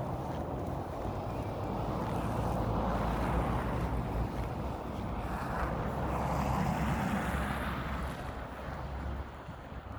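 Wind buffeting the microphone in gusts, a steady low rumble with swells that rise and fall every few seconds.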